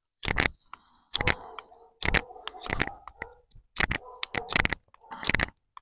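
Bushcraft knife blade (J&V Celtíbero CDS) cutting into a wooden stick: a series of about eight crisp shaving cuts, roughly one every two-thirds of a second, as a point and notch are carved.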